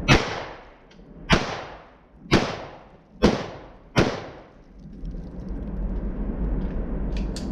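Five gunshots from a .22 Magnum, fired about a second apart with the last two closer together. Each is a sharp crack with a short echo.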